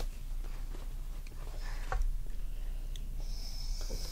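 Quiet handling of a plate of crab, with a soft click about two seconds in and a brief faint hiss near the end.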